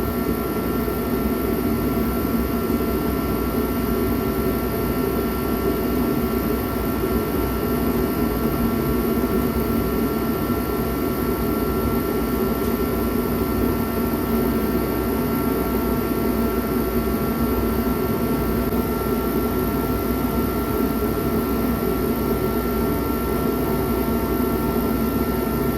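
Forced-air kerosene heater running, a steady rushing burner-and-fan noise with a faint constant whine over it.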